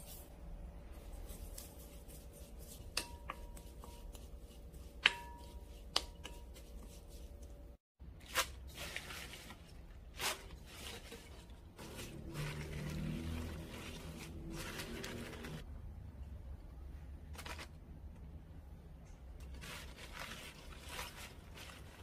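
A spoon taps against a glass mixing bowl a few times, some taps ringing briefly. Then gloved hands toss and squeeze raw bok choy leaves in the seasoning, an irregular rustling and squishing of leaves against the glass.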